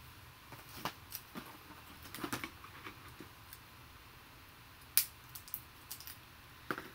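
Scattered light clicks and rustles of small plastic doll accessories and packaging being handled, with one sharper click about five seconds in.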